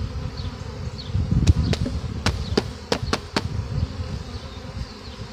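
A swarm of honeybees buzzing as they are shaken out of a plastic bee package into a hive, with a quick run of about seven sharp knocks from the package being jarred partway through.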